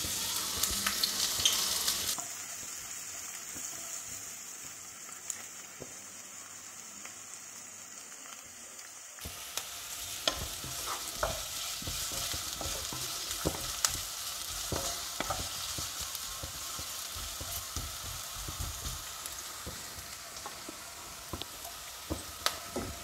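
Sliced red onion sizzling in hot oil in a coated kadai, loudest for the first couple of seconds as it goes into the pan. From about nine seconds in, a wooden spatula stirs it, with repeated short scrapes and light knocks against the pan over the sizzle.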